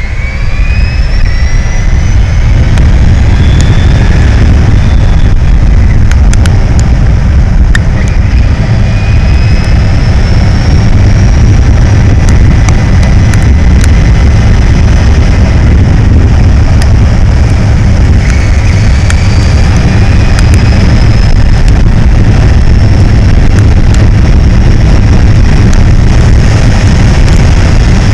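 Brammo Empulse electric motorcycle accelerating up through its gearbox: a thin motor whine climbs in pitch, drops and climbs again at each of two upshifts, about eight and about eighteen seconds in. Heavy wind rush on the helmet camera sits under the whine.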